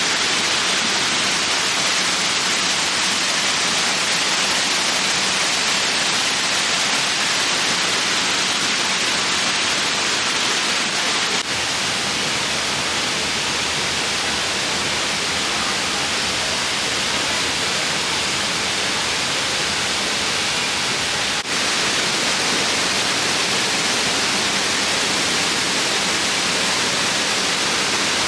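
Waterfall rushing: a loud, steady noise of falling water, changing abruptly about eleven seconds in and again about ten seconds later, where the shots are cut together.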